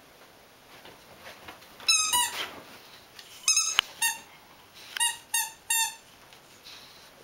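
Squeaky toy ball being squeezed in a puppy's jaws, giving a run of short, sharp squeaks. They start about two seconds in, come in small clusters, and end with three quick, evenly spaced squeaks.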